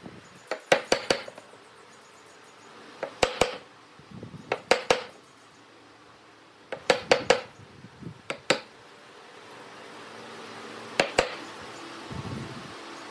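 Hammer striking a steel wood chisel, cutting a round drilled hole square into a mortise: sharp taps in short groups of two to four, a few seconds apart, with quieter scraping of the chisel against the wood between some groups.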